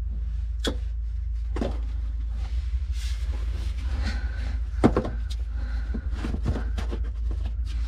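Telescoping magnet pick clicking and knocking against loosened steel flange bolts as they are fished out of the hydraulic rotary manifold, a string of separate sharp clicks with the loudest about five seconds in, over a steady low hum.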